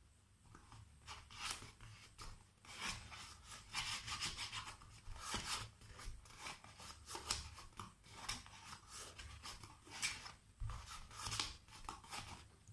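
Hands rubbing and pressing a card-paper box down onto a glued paper base: irregular scratchy rustles of paper sliding on paper as it is stuck in place.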